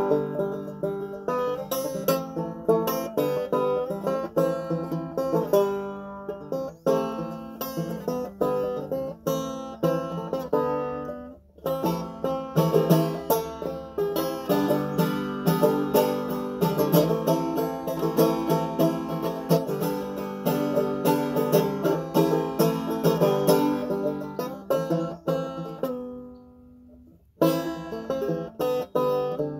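Banjo being picked solo: a steady run of bright plucked notes and chords, with a short break about eleven seconds in and a longer pause near the end where the notes ring and fade out before the playing starts again.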